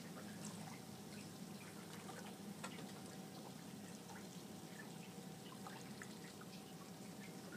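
Faint small splashes and drips of water as a sea otter rolls over at the surface, over a steady low hum.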